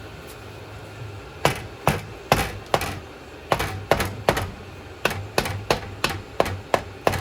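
Hammer strikes on the Polaris 200 cc ATV's differential carrier housing to knock it apart: about fourteen sharp blows in quick runs of three or four, starting about a second and a half in.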